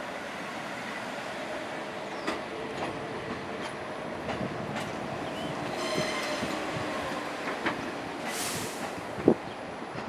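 R46 subway train pulling into the station, its wheels clicking over the rail joints. There is a brief squeal about six seconds in and a short hiss a couple of seconds later. A sharp clank near the end is the loudest sound.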